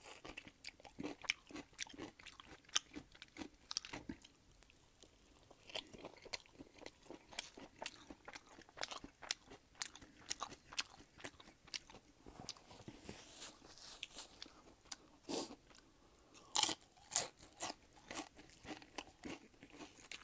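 A person chewing and biting crunchy food close to the microphone: a dense run of crisp crunches, with a few louder bites near the end.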